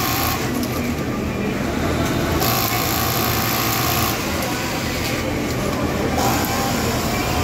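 JUKI industrial sewing machine stitching in runs of a second or two, stopping and starting, over the steady hum of a garment-factory sewing floor.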